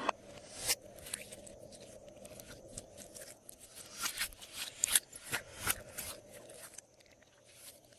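Glossy slime being mixed and pressed by hand, giving an irregular run of sticky clicks and crackles, some louder than others.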